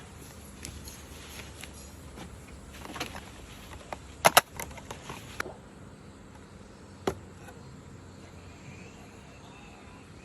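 Small hard clicks and taps from handling a toy gas revolver and its red-dot sight mount. The loudest is a quick double click about four seconds in, followed by a few lighter clicks and one more sharp click about seven seconds in.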